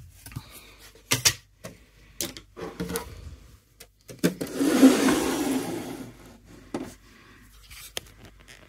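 Handling noises: scattered knocks and clicks, and a loud rubbing rustle lasting about two seconds from about four seconds in.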